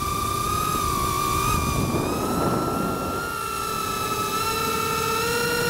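FPV quadcopter's brushless motors whining at a steady high pitch that dips slightly and then climbs slowly through the second half as the throttle changes, over a low rush of wind.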